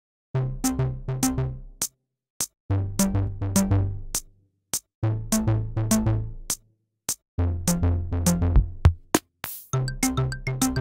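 Electronic music: a drum-machine and synth phrase of low bass notes and sharp ticks, repeated four times with short silent gaps between. A noise sweep near the end leads into a busier section with high blips.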